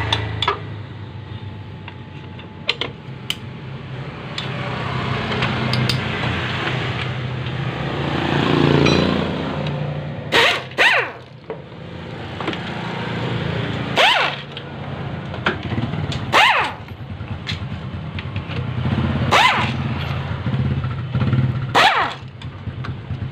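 Pneumatic impact wrench firing in several short bursts on the 10 mm CVT cover bolts, mostly in the second half, over the steady hum of a small air compressor running. The compressor is too small to give the impact enough force for these bolts.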